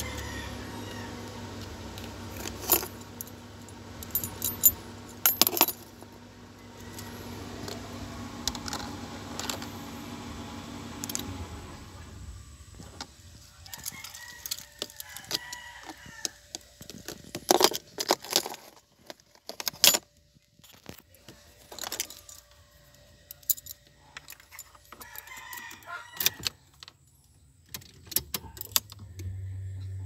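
A Nissan Gloria's engine idles with a steady low hum, then stops about eleven seconds in, with the hum returning about a second before the end. Keys and a remote fob jangle and click throughout, and a rooster crows in the background during the quieter second half.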